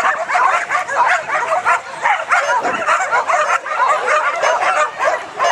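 Many dogs barking and yelping at once in a dense, continuous din. These are flyball dogs held back at the start line, worked up before their release.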